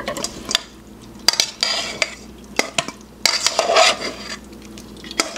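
Metal tongs clinking and scraping against a stainless steel mixing bowl as raw chicken wings are tossed in olive oil, in irregular clicks and short scraping runs.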